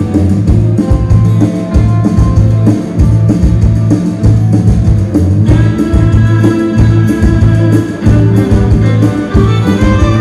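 A band playing: guitar over a steady bass line and an even drum beat.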